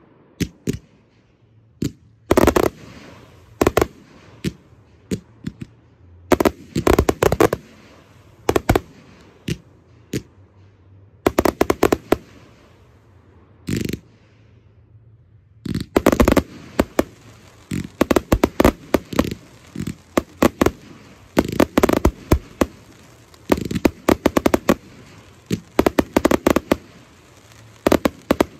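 Aerial fireworks display: volleys of sharp bangs and crackling bursts come in clusters with short lulls between them. About halfway through they become a near-continuous rapid barrage.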